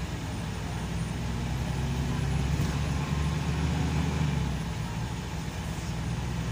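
Scania K340EB coach with an Irizar PB body heard from inside the passenger cabin while under way: a steady low engine drone with tyre and road noise.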